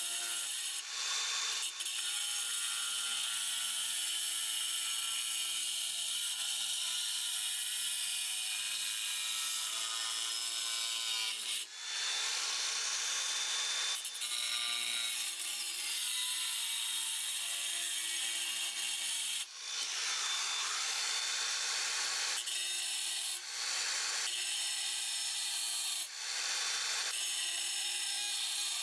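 Angle grinder cutting a ceramic tile: a steady high whine over a harsh grinding hiss, dipping briefly several times as the cut eases off and bites again.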